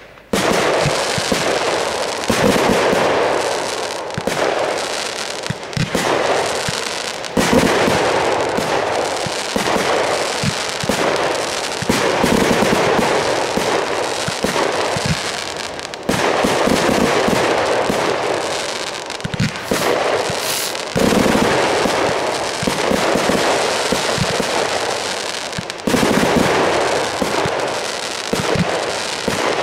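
Aerial fireworks going off in a dense, continuous barrage of bangs and crackling. A fresh, louder volley starts about every four to five seconds.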